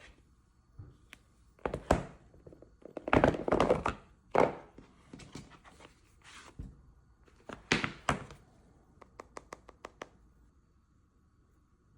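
Unboxing handling of an iPhone box and its packaging: several thunks and rustling scrapes of cardboard and wrapping, then a quick run of light taps or clicks near the end.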